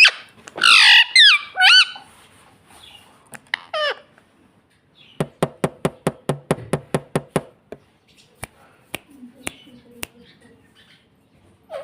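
Indian ringneck parrot giving loud, pitch-bending squawks in the first two seconds and once more near 4 s. About five seconds in comes a quick run of sharp clicks, roughly eight a second for two seconds, followed by a few scattered single clicks.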